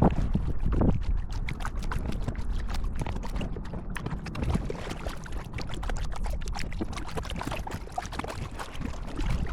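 Kayak paddling: water pouring and dripping off the paddle blades with many small splashes and ticks, over a low wind rumble on the microphone.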